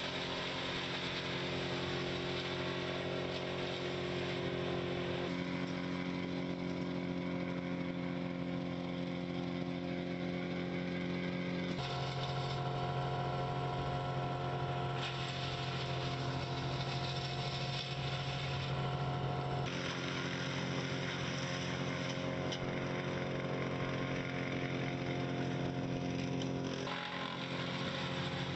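Two-stroke chainsaw engine running steadily at high speed, its pitch holding level and then stepping to a new steady pitch several times.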